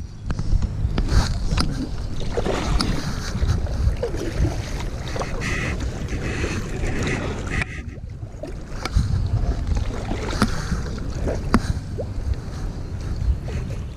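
Kayak being paddled: paddle strokes splashing in the water, with scattered knocks of paddle and gear against the hull and wind rumbling on the microphone.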